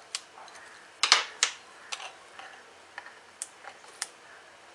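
Light, irregular clicks and taps, about six in all, of a utility knife blade and tweezers against a laptop's plastic bottom cover as a small round sticker over a hidden screw is pried up.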